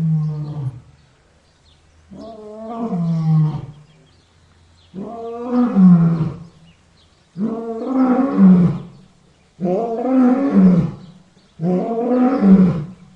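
A lion roaring, a series of six long deep calls about two seconds apart, each rising and then falling in pitch.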